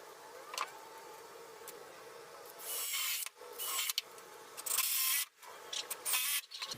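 About five short rasping strokes on wood, each under a second, starting about two and a half seconds in.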